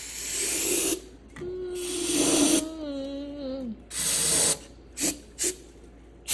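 Aerosol starter fluid sprayed into a snowmobile engine in three short hissing bursts, priming it for a start. A drawn-out vocal note, sinking in pitch, sounds over the second burst.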